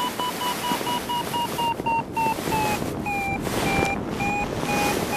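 Paragliding variometer beeping rapidly, a climb signal showing the glider is rising in lift. The pitch dips a little around three seconds in and climbs again near the end as the lift weakens and strengthens, over steady wind rushing past the microphone.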